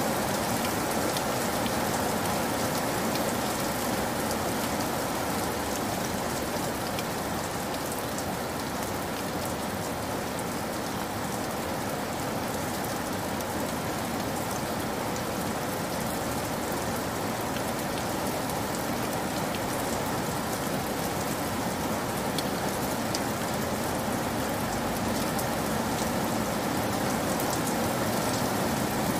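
Heavy rain falling steadily, with the odd sharp drop hit standing out.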